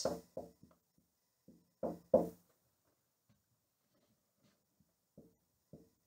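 Whiteboard marker knocking and squeaking on the board in short separate strokes while words are written. The loudest pair comes about two seconds in, and a couple of fainter strokes come near the end.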